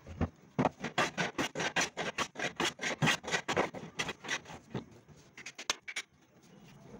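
Rapid hand-worked scraping strokes on wood, about four or five a second, thinning out to a few scattered strokes after about five seconds.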